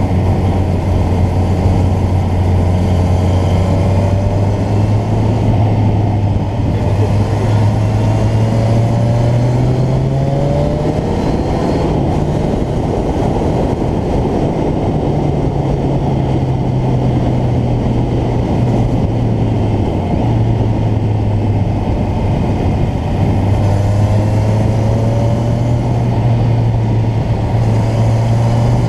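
Motorcycle engine running at road speed. Its pitch climbs steadily around ten seconds in, drops back at about twelve seconds, and rises and falls again as the bike is ridden through the bends.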